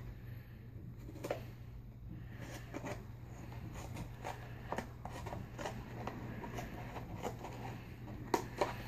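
Small cardboard figure box being worked open by hand: scattered light rustles, scrapes and clicks of card, with a couple of sharper clicks near the end. A faint steady low hum runs underneath.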